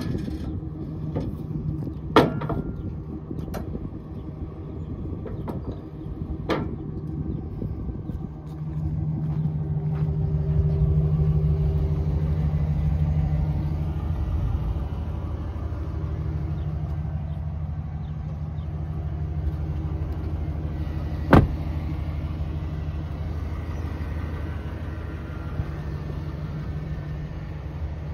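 2015 Chevrolet Silverado pickup's engine idling steadily, with a low hum that grows louder for a few seconds about ten seconds in. A few sharp knocks or clicks, the loudest about 21 seconds in.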